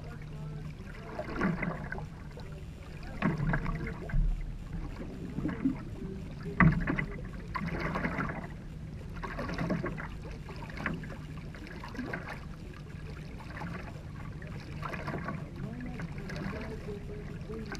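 Racing canoe paddle strokes: the blade catching and pulling through the water in a steady, unhurried rhythm, a splashy swell about every second and a half, over a low steady hum.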